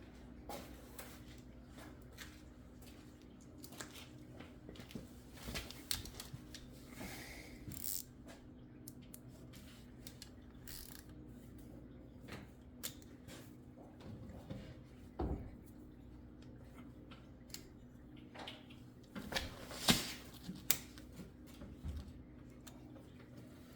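Scattered clicks, clinks and knocks of hand tools working the 8 mm bolts of an ATV's oil filter cover, over a steady low hum.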